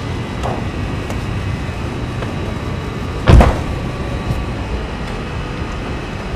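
A car door is shut once: a single heavy thud about three seconds in, over a steady low rumble.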